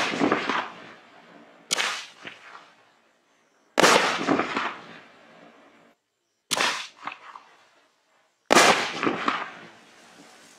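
Raccoon Fireworks Tiger Force 24-shot cake firing shot after shot: a sharp bang about every two seconds, each trailing off over a second or more, the loudest right at the start.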